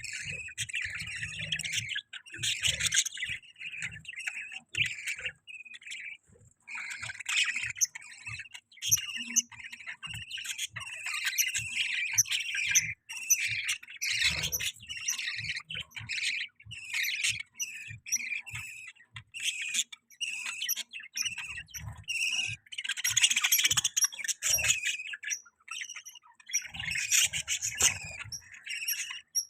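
Budgies chirping and chattering in rapid, busy runs, with brief pauses about six seconds in and a few seconds before the end.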